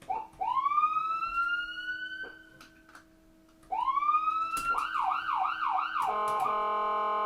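Emergency vehicle siren: a wail rises and holds for about two seconds, a second wail rises, then it switches to a fast up-and-down yelp. Near the end it gives way to a long steady horn blast that breaks once briefly.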